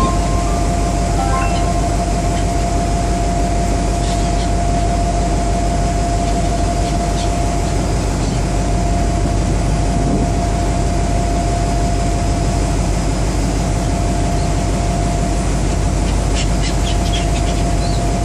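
Car ferry under way: steady rumble and rush from its engines and churning wake, with a steady high whine running through.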